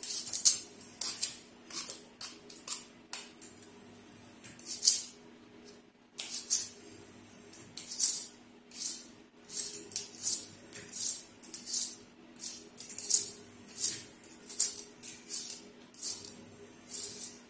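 Handheld vegetable peeler scraping the tough skin off a celtuce stalk in quick repeated strokes, each a short crisp rasp, with a few brief pauses.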